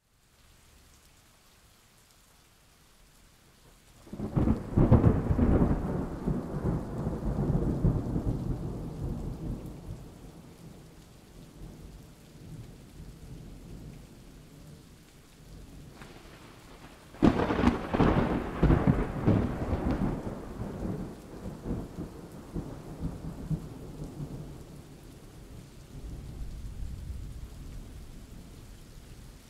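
Thunderstorm: steady rain with two loud thunderclaps, the first about four seconds in and the second, sharper, about seventeen seconds in, each rumbling on and fading over several seconds.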